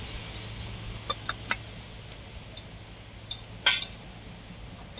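Steel cylinder liners clinking and knocking metal on metal as they are handled and fitted into the bores of a Volvo EC210B excavator engine block. A few light clinks come about a second in, and a louder, sharper clink with a short ring comes near four seconds in.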